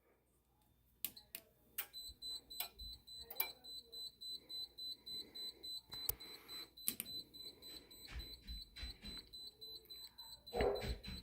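Siemens MXL fire alarm control panel's built-in piezo sounder beeping rapidly at a high pitch, about four beeps a second, starting about two seconds in, with scattered clicks. The panel has just been reset and is still in trouble, its sounder not yet able to be acknowledged.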